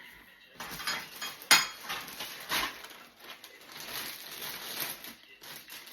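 Parts of a baby play seat being handled, with clattering, rustling and scattered knocks; the sharpest knock comes about a second and a half in.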